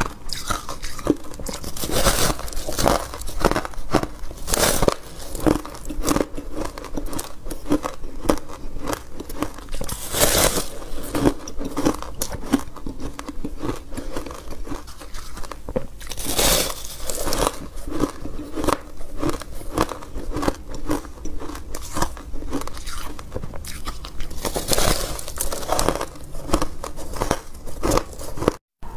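Close-miked biting and chewing of powdery, frost-coated refrozen ice: a steady run of crisp crunches, with a louder crunching bite every few seconds. The sound cuts out briefly just before the end.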